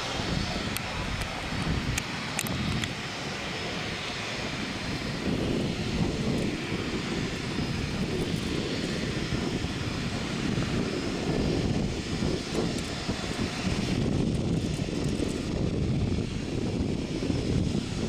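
Boeing 767-300ER airliner's jet engines running during its landing rollout on the runway: a steady, low noise that grows somewhat louder about five seconds in.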